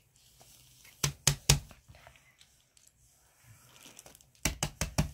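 Plastic fidget toys being handled and set down: three quick sharp clicks about a second in, then another quick cluster of four or five near the end.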